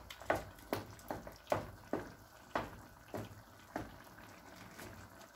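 Wooden spoon stirring chunks of mutton and soft tomatoes through broth in a karahi, with irregular wet knocks and scrapes roughly every half second.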